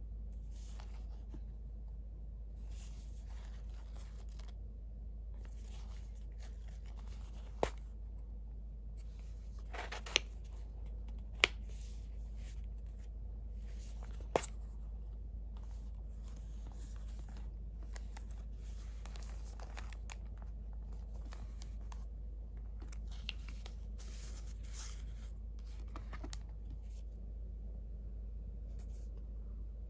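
Paper rustling and sliding as a handmade junk-journal paper file and its pockets are handled and opened, with four sharp clicks in the first half, the loudest about eleven seconds in. A steady low hum sits underneath.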